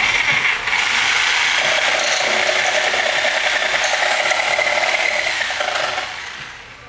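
A handheld power tool running with a steady high whine and a fast clattering, for about six seconds before it winds down near the end.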